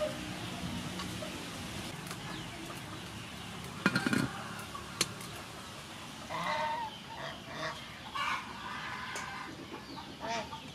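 A sharp metallic clank about four seconds in, the aluminium lid going onto the steamer pot. In the second half, farm animals call repeatedly in the background.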